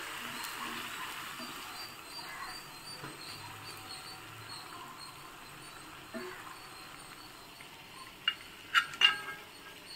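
Potato bondas deep-frying in oil in an iron kadai, a faint steady sizzle. A few short, sharp knocks stand out near the end while a slotted metal spatula lifts the bondas out.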